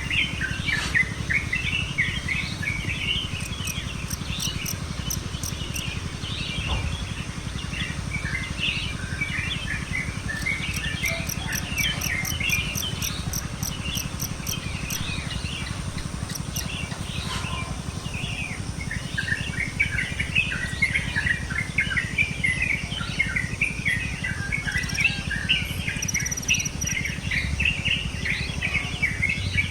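Many birds chirping and chattering at once in a busy morning chorus, their calls overlapping without a break. A high ticking, two or three a second, comes and goes twice.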